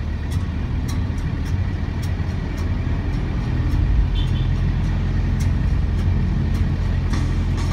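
Inside the cabin of an Isuzu Panther 2.3 driving on a wet road in rain: a steady low drone of engine and tyre noise, with scattered faint ticks of rain on the body.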